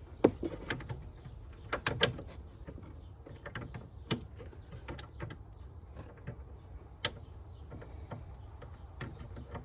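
Scattered clicks and knocks of plastic car parts being handled while a taillight and its wiring connector are fitted, over a steady low rumble.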